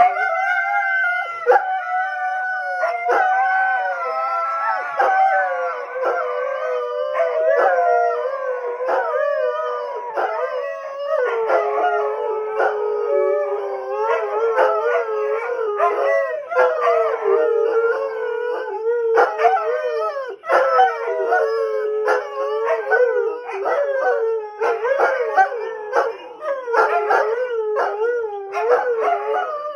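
Three greyhounds howling together, set off by a police siren: several overlapping howls that waver in pitch, higher at first and then settling lower.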